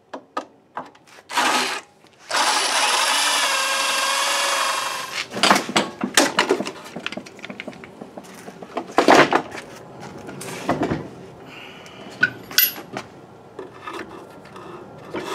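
Electric drill boring through the wooden end board of a workbench: a short burst, then about three seconds of steady drilling with the motor's pitch wavering under load. It is followed by scattered knocks and clicks of tools and parts being handled.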